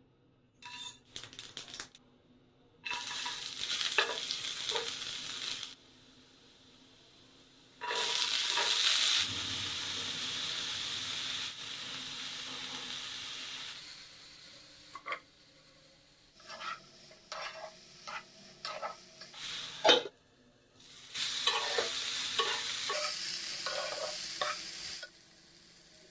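Food sizzling in hot oil in a pan in three separate stretches that start and stop abruptly, with a utensil clinking and knocking against the pan in between.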